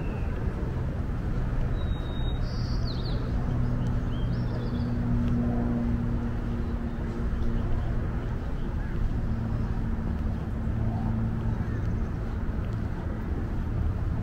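Steady low engine hum outdoors, with a few short bird chirps about two to three seconds in.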